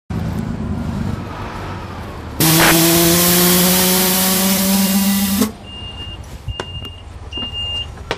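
Inside a 2004 Neoplan AN459 articulated bus with a Caterpillar C9 ACERT engine, the bus running with a low rumble. About two and a half seconds in, a loud hiss with a low steady tone lasts about three seconds and cuts off sharply. After it comes a string of short high beeps, a little under one a second.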